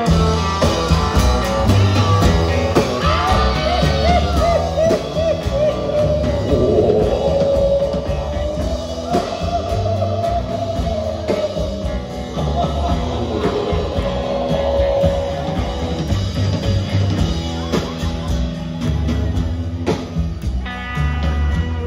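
Live rock and roll band playing upright bass, drums, acoustic and electric guitar, with a man singing; a long wavering note holds over the band through the middle.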